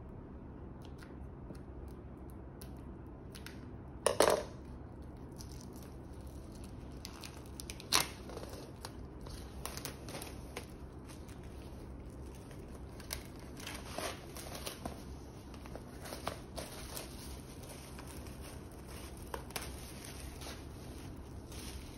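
Clear plastic shrink-wrap on a vinyl LP sleeve being cut with scissors, then torn and peeled off, crinkling in many short crackles. The loudest tear comes about four seconds in, with a sharp snap about eight seconds in.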